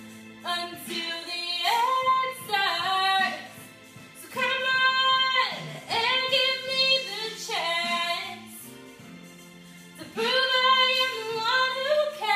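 A young woman singing solo in three long phrases with sliding and held notes, over low sustained accompaniment notes.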